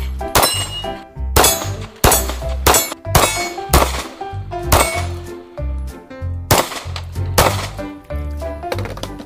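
Background music with a steady beat: sharp, clanging percussion hits over a stepping bass line.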